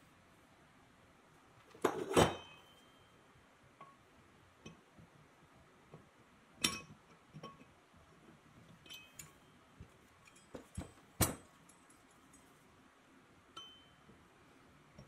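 Metal parts of a 1937 Delta DP220 drill press head being handled during reassembly: scattered clinks and knocks of the cast-iron casting and steel spindle, the loudest about two seconds in, with others near seven and eleven seconds, a few leaving a short ring.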